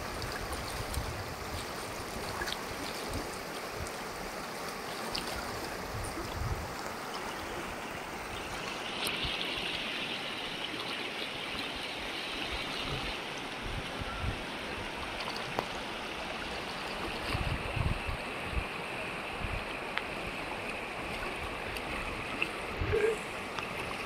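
Fast mountain river rushing over boulders: a steady rush of moving water, a little brighter in tone from about nine seconds in.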